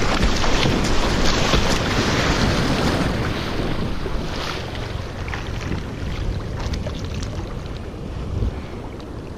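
Ocean surf breaking: a loud rushing wash that fades over the second half, with wind buffeting the microphone.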